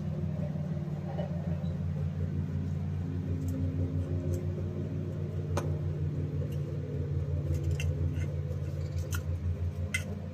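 A steady low hum with a fast pulsing throughout. Over it come a few light clicks and ticks of small metal carburetor-cleaning wires being handled and sorted, mostly in the second half.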